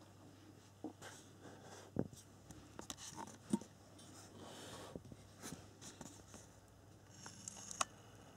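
Faint handling noise: light scattered clicks, taps and rubbing, with a few sharper knocks about two seconds in, midway and near the end.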